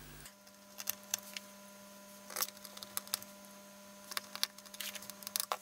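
Faint, irregular clicks and taps of small screws being fitted by hand into a flat-screen TV's metal chassis, over a steady low hum.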